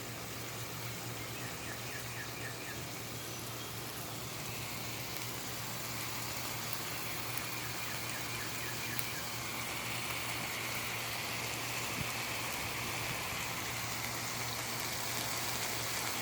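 Burger patties and pepperoni frying on a gas griddle: a steady sizzling hiss that grows a little louder about halfway through, over a low steady hum.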